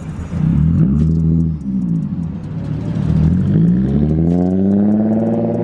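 Nissan 350Z's 3.5-litre V6 revving through a loud Tomei aftermarket exhaust: two short blips up and down, then a longer climb in revs that holds near the end. No whistle stands out over the exhaust, so the clip-on turbo whistle on the tip is drowned out.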